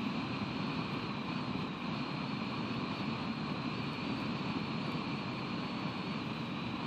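Steady wind and surf noise on an outdoor nest-camera microphone, with a faint high electronic whine.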